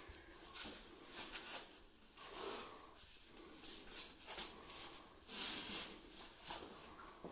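A hiker's movement sounds while stemming across a narrow sandstone slot canyon: short, irregular scuffs and breaths from sandals and hands on the rock walls, one longer one about five seconds in.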